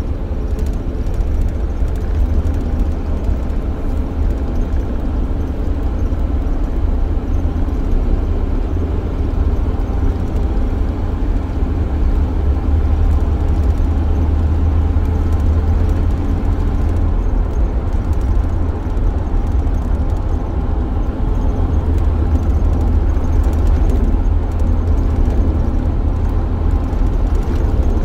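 Van being driven, heard from inside the cabin: a steady low rumble of engine and road noise that holds even throughout.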